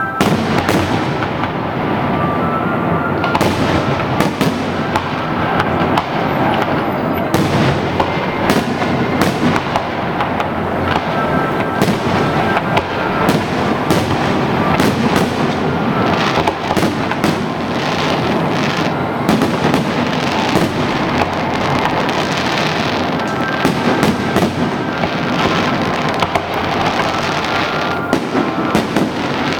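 Fireworks display: a dense, unbroken run of bangs and crackling.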